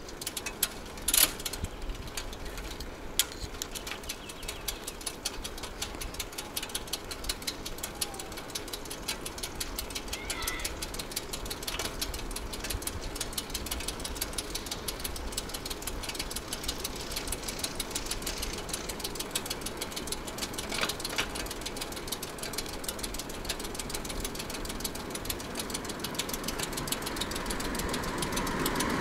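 Bicycle riding along, heard from the bike's camera: a continuous run of rapid small ticks and rattles. Near the end a motor vehicle comes closer and grows louder.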